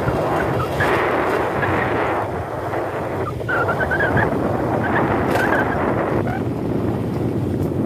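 Motorcycle engine running steadily while riding along a dirt track, with wind rushing over the microphone.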